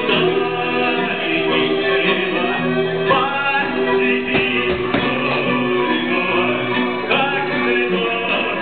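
Live acoustic music for belly dance: a hand drum keeping a steady rhythm under stringed instruments.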